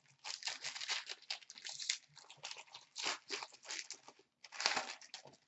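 Foil trading-card pack being torn open and crinkled by hand: irregular crackling, loudest about three seconds in and again near the end.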